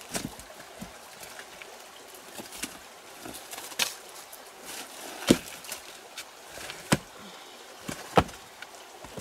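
Flat creek stones knocking together as they are lifted and shifted, a handful of sharp knocks a second or more apart, the loudest about five seconds in. Under them runs the steady wash of a small rocky stream.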